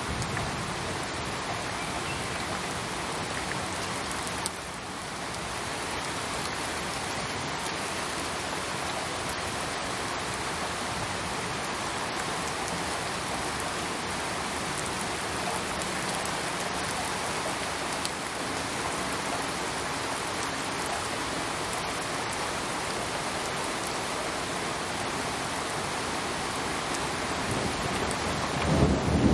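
Steady rain falling on surfaces, a dense even hiss. A low rumble of thunder begins near the end.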